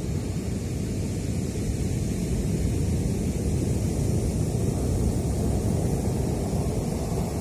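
High surf breaking and its foam washing up the beach, mixed with wind buffeting the microphone: a steady low rumble that swells a little through the middle.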